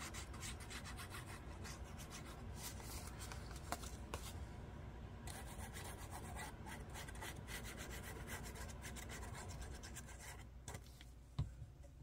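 Faint, rapid scratchy rubbing on paper as the paper flaps of a journal pocket are glued and pressed down, easing off near the end, followed by a couple of light taps.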